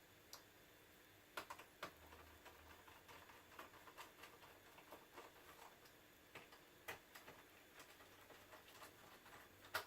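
Faint, irregular clicks and light taps of a laptop's plastic memory cover and its small screws being handled and fitted.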